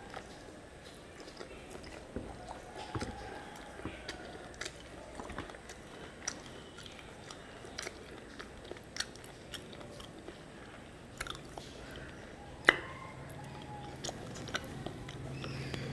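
Close-up chewing of rice and catfish curry eaten by hand, heard as scattered wet clicks and smacks, with one sharper click about three quarters of the way through.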